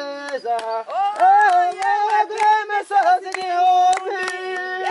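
Singing in Kinyarwanda, voices holding long, wavering notes over a regular beat of sharp strikes about three a second.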